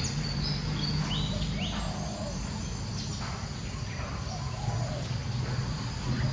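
Forest ambience: a steady drone of insects with scattered short, high bird chirps, over a steady low hum.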